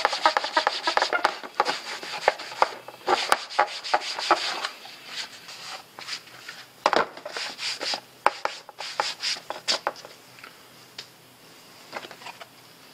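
A cloth rag rubbed back and forth over a textured black plastic bumper end cap, wiping off excess plastic restorer. Rapid scrubbing strokes for the first few seconds, then slower, scattered wipes that die away near the end.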